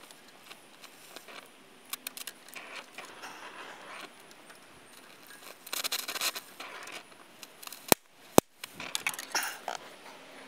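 Gas welding torch hissing with crackling, spitting sparks as filler rod is melted into a torn spot in a steel brake backing plate, densest around six seconds in. Two sharp clicks about eight seconds in.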